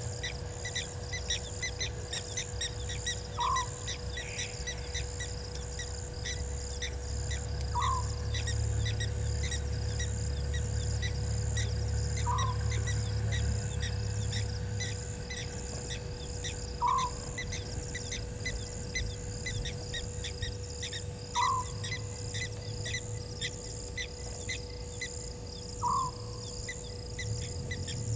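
A night bird's short call, repeated evenly about every four and a half seconds, over a steady chorus of night insects chirping and a faint constant hum.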